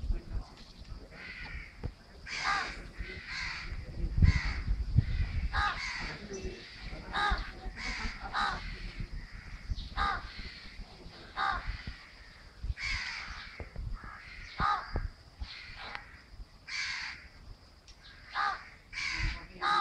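Crows cawing over and over, a short harsh call roughly every second. A few low thuds come about four seconds in.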